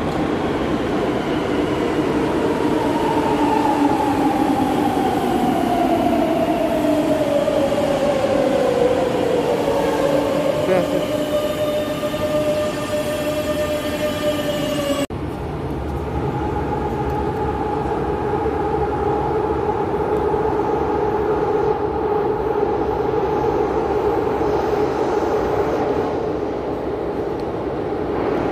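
Madrid Metro electric train pulling into an underground station: its motor whine falls steadily in pitch as it brakes and then levels off as the train slows alongside the platform, over the rumble of the wheels. About halfway through, the sound cuts abruptly to a steady whine and rumble of a train coming through the tunnel.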